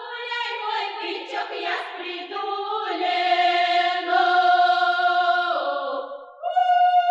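A group of Russian folk singers sing a vesnyanka, a spring-calling song, in long, loud held notes. One phrase breaks off about six seconds in, and a new held note starts at once.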